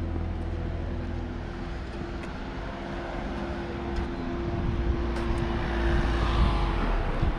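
A motor vehicle's engine running with a steady low hum, growing louder in the last couple of seconds as it comes closer.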